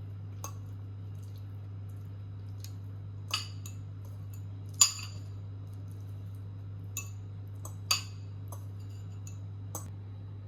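Kitchen utensils and dishes clinking in a handful of short, sharp knocks, the loudest about halfway through, over a steady low hum.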